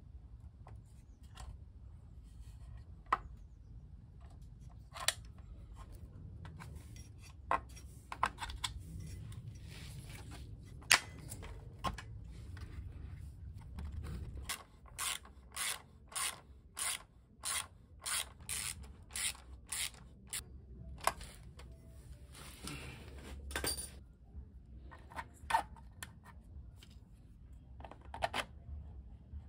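Metal parts clicking and knocking as a motor bracket and crank arm are fitted by hand at a bicycle's bottom bracket. About halfway through comes a run of about a dozen evenly spaced ratcheting strokes, roughly two a second, like a ratchet tool being worked.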